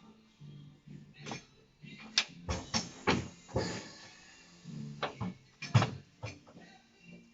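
Background music, with a run of sharp knocks and clinks scattered through it.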